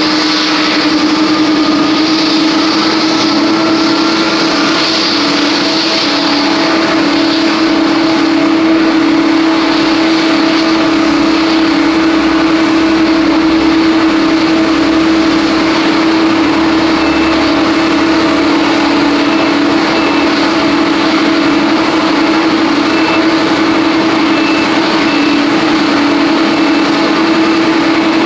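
Steady jet-engine noise: a continuous rushing sound under a steady droning hum, with a faint whine that rises slightly over the first few seconds.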